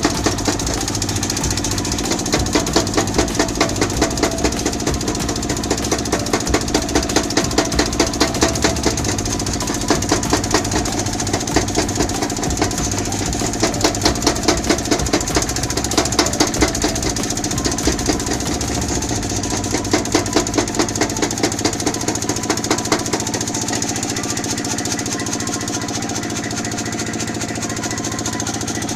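Mechanical power hammer forging red-hot metal: runs of rapid blows, about five a second, with short pauses between runs, over the steady drone of the machine's drive. The blows are lighter near the end.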